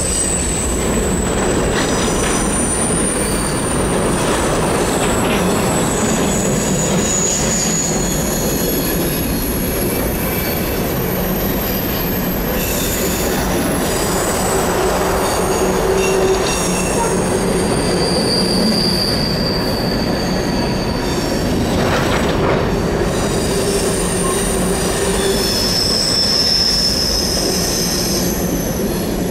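Empty open-top hopper cars of a unit train rolling through a curve. Their steel wheels squeal against the rail in high tones that shift and come and go over a steady rolling rumble.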